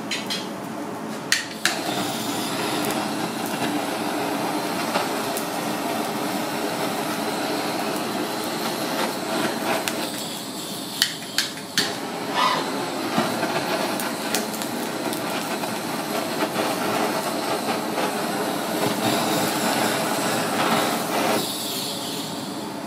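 Pieces of triggerfish sizzling on a wire grill rack over hot elements, a steady hiss, with a few sharp metallic clicks from tongs or chopsticks against the grate, a couple near the start and a few around the middle.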